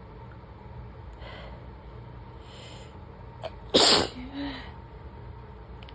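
A person sneezes once, loudly and sharply, a little past the middle, after a few audible breaths in and a quick catch of breath; a short voiced sound follows the sneeze. It is an allergy sneeze, which the sneezer puts down to the fall ragweed season.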